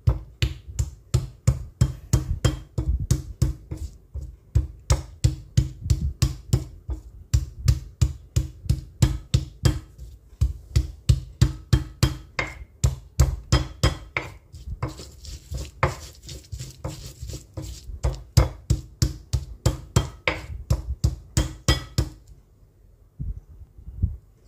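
Stone pestle pounding garlic cloves in a stone mortar (cobek and ulekan), a steady run of knocks about three or four a second as the garlic is crushed into a spice paste; the pounding stops about two seconds before the end.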